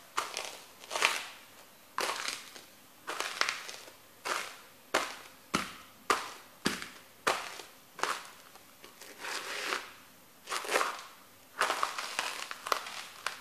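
Crunchy breadsticks crushed under the lugged rubber soles of Fila boots stamping again and again on a paper sheet, a crisp crunch every second or so.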